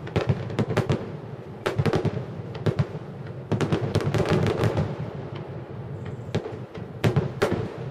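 Aerial fireworks shells bursting in rapid succession: a dense run of booms, several a second, over a continuous rumble.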